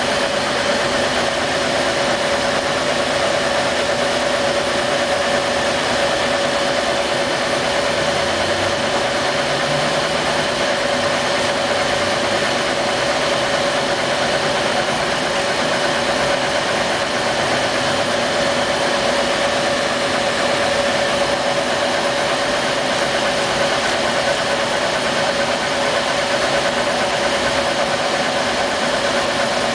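Laser engraver running while it engraves: a steady machine hum and hiss with one held mid-pitched tone, unchanging throughout.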